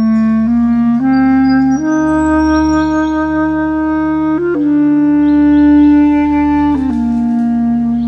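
Bass clarinet playing a slow melody of long held notes, stepping up in pitch over the first two seconds, holding, then stepping back down near the end.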